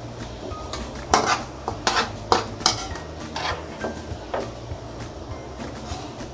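A metal spoon scraping and clinking against a metal kadhai as crisp fried onions are scooped out of the oil. A quick run of sharp clinks comes about a second in, then it goes to quieter scraping.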